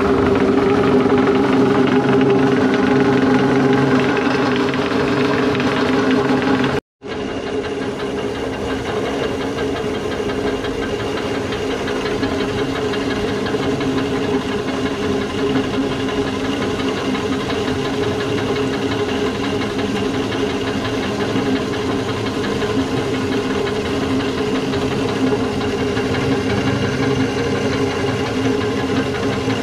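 Small feed pellet mill driven by a 2 hp electric motor, running steadily under load as it presses mash into chicken feed pellets on the first of three passes. The sound drops out for a moment about seven seconds in, then continues unchanged.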